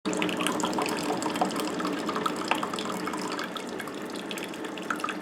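Drip coffee maker brewing: water streaming and dripping into the carafe with a steady crackle of small gurgles. The machine is worn, on its last legs, and 'pees funny'.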